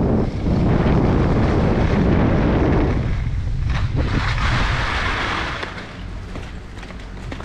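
Wind buffeting a helmet camera's microphone and skis hissing over packed snow at speed. About three seconds in the rumble drops away as the skier slows, followed by a brighter scraping hiss of skis sliding over a snowy rubber-matted walkway, with a few clicks, then quieter scattered clicks.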